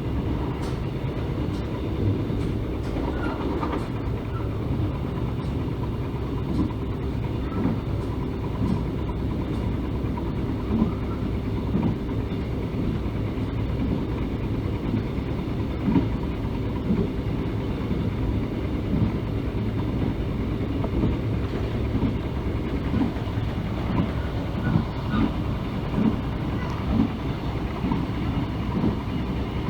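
Mugunghwa-ho passenger train running along the line: a steady rumble with frequent short, irregular clacks of the wheels on the rails.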